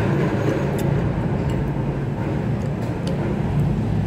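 Steady low mechanical rumble with a faint hum, and a few faint light clicks on top.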